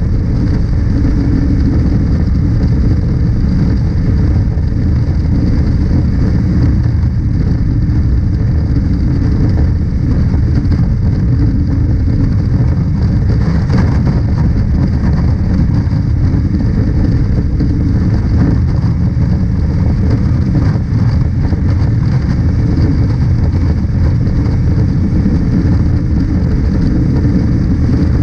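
Honda CB500X parallel-twin motorcycle cruising at highway speed: a steady rush of wind on the rider's camera over the engine's drone. An oncoming car swishes past about halfway through.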